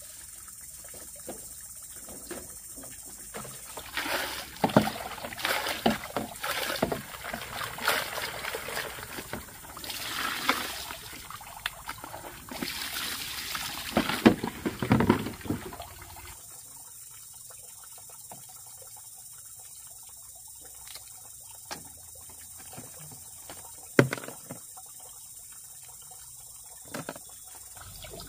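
Water splashing and sloshing in irregular bursts for about twelve seconds, then quieter with a few small knocks, one of them sharp about three-quarters of the way through.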